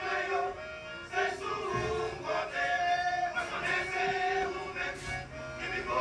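A vocal group singing a Christian song with instrumental backing, in held notes that change every half second or so.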